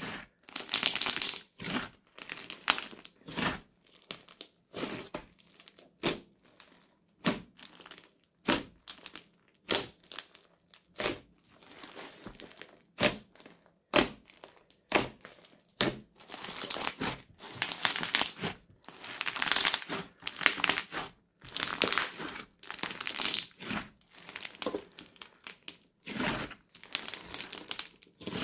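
Crunchy slime studded with small beads being squeezed and kneaded by hand, giving crackly, popping bursts as air pockets and beads are pressed, about one every second.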